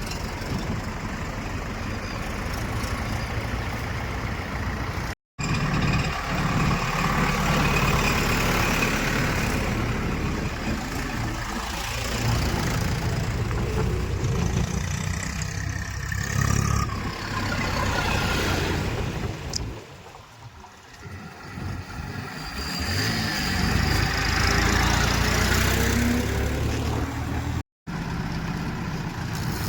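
Heavy diesel engines of a backhoe loader and tractors working in mud, running and revving up and down under load. A quieter spell comes about two-thirds of the way through, and the sound cuts out abruptly twice for a moment.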